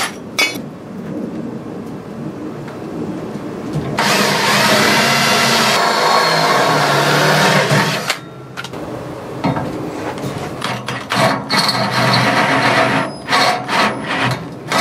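Power drill running for about four seconds, spinning a bit through the wheelbarrow bracket's bolt hole against the metal pipe handle to mark where the hole will be drilled. Before and after it, scattered clicks and knocks of the parts being handled.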